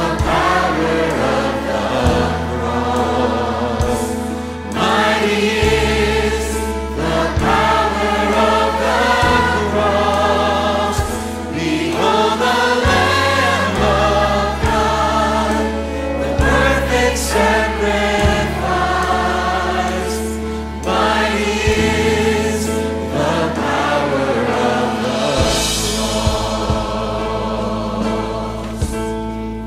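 A church choir and a children's choir singing a hymn with an orchestra, over low sustained bass notes that change every couple of seconds.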